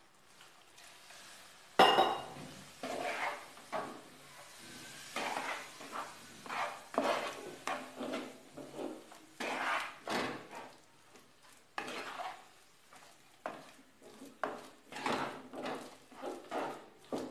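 Spatula stirring and scraping a thick, lumpy flour-and-water mix around a stainless-steel frying pan, in irregular strokes about once or twice a second. A single sharp knock comes about two seconds in.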